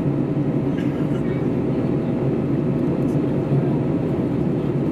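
Steady cabin drone inside an Airbus A321neo airliner, the low even noise of its engines and air heard from a passenger seat, with a few faint steady tones over it.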